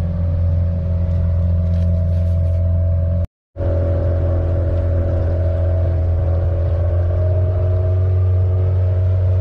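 Small fishing boat's engine running steadily under way, a deep hum with a steady higher whine over it. The sound drops out completely for a moment a little over three seconds in.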